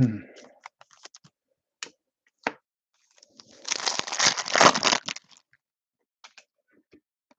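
Foil wrapper of a Panini Select trading-card pack torn open by hand: a crinkling rip about three seconds in that lasts around two seconds. Light clicks and rustles of cards and a plastic sleeve being handled come before and after it.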